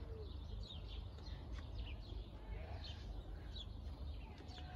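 Small garden birds chirping: many quick, short, falling chirps, some of them house sparrows, over a steady low rumble.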